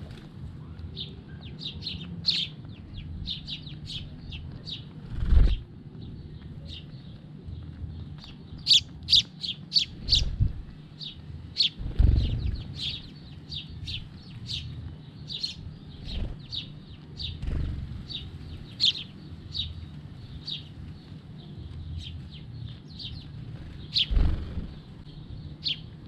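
House sparrows chirping, many short, rapid chirps from several birds. A few low flutters of wings break in as birds fly in and out.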